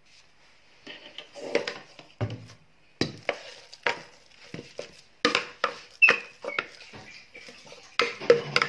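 Glass bowl and knife knocking and scraping against a metal cooking pot as a thick ground-meat mixture is pushed in by hand: after a quiet first second, light scraping, then a busy run of sharp clinks and knocks from about three seconds in.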